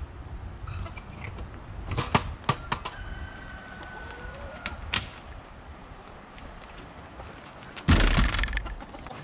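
Sharp knocks and clanks of a galvanized metal garbage can and its lid being handled and set down on the ground, a few about two seconds in and another about five seconds in. A louder, brief rustling thump near the end.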